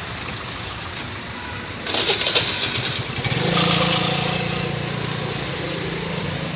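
Maruti Ertiga's engine running, with a rapid rattling clatter about two seconds in. The engine note then rises and grows louder about three and a half seconds in, and it settles to a steady run.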